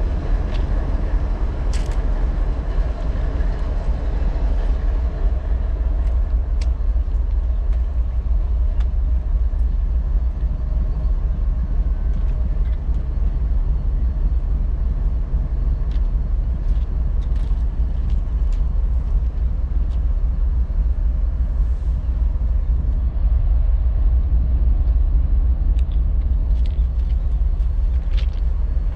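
GE ES44DC diesel-electric locomotive's GEVO-12 V12 diesel engine idling, a steady deep rumble.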